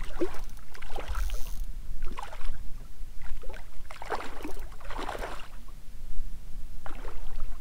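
Water splashing and sloshing in irregular bursts, over a low steady rumble of wind on the microphone.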